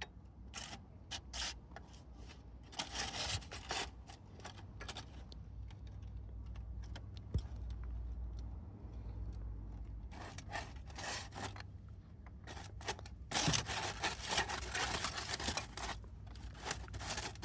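Hands and tools working on a motorcycle: bouts of scraping and rubbing with scattered small clicks and knocks. The longest stretch of scraping comes in the last few seconds.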